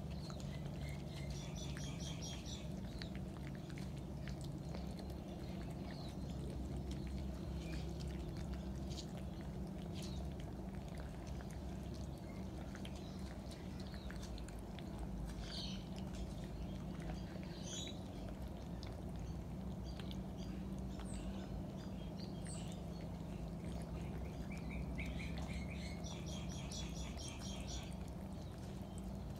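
Cats chewing food out of a stainless steel bowl, with scattered small clicks. Birds twitter in the background: a rapid trill about two seconds in, short high chirps in the middle, and another rapid trill near the end. A steady low hum runs underneath.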